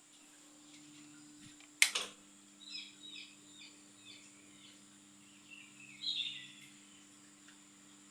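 Ceiling fan motor humming steadily, with a sharp click about two seconds in, after which a second, lower hum joins. Short high chirps come in quick runs soon after the click and again near six seconds.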